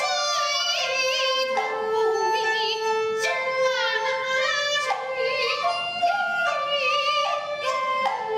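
Kunqu opera singing: a woman's high voice sliding and wavering through ornamented notes, over steadily held instrumental notes that change pitch every second or so.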